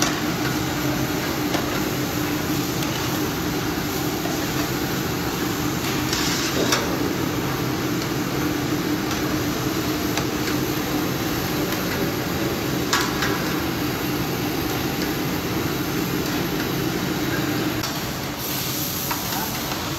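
Long steel spatula stirring a large batch of carrot halwa in a steel karahi, with a few short knocks of the spatula against the pan, over a steady hum.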